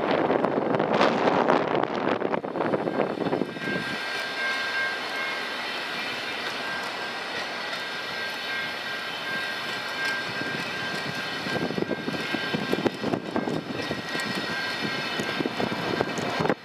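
Passenger train cars rolling past at speed: steel wheels clattering rapidly over the rails with a steady rushing roar. The clatter is loudest in the first few seconds and again in the last few, with a smoother, quieter rush and a faint high whine in between.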